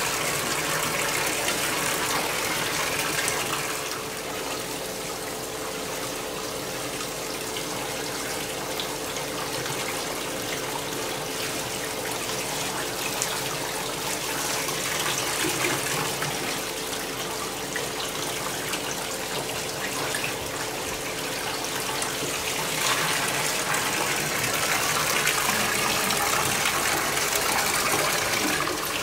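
Bathtub tap running, water rushing steadily into the tub, with a faint steady tone under the rush. It eases off a few seconds in and gets louder again near the end.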